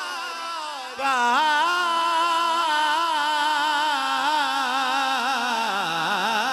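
A man singing a naat into a handheld microphone, unaccompanied, drawing out a long melismatic phrase with quick wavering ornaments; the phrase before it fades and a new one starts about a second in.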